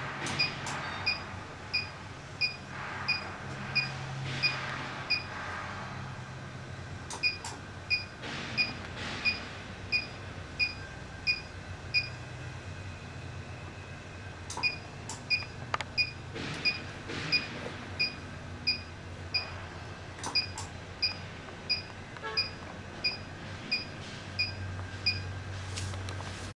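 HIFU machine beeping once per ultrasound shot: short, high beeps about every 0.6 to 0.7 seconds, each marking one pulse fired through the handle. They come in three runs broken by pauses of one to three seconds.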